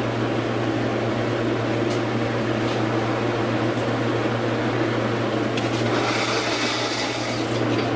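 Small electric grinding tool running steadily with a constant hum, grinding harder and hissier about six seconds in as it cuts into a broken tail-light clip.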